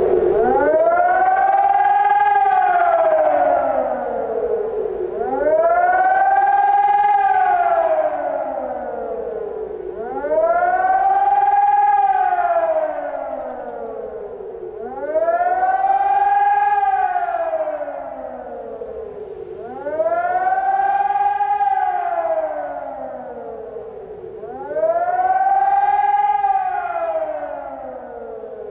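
Civil-defence-style emergency alert siren wailing. Its pitch climbs quickly, then sinks slowly, repeating about every five seconds, roughly six wails in all.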